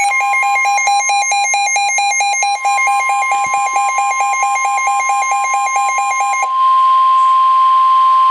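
The NOAA Weather Radio warning alarm tone, a steady 1050 Hz tone, sounding the start of a coastal flood warning. A fast-pulsing electronic beep alarm plays over it and stops about six and a half seconds in, after which the steady tone continues alone.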